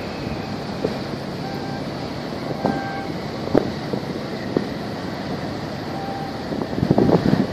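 Wind buffeting the microphone in short gusts, heaviest near the end, over a steady low rumble from a large container ship and the tugboat working alongside it on choppy harbour water.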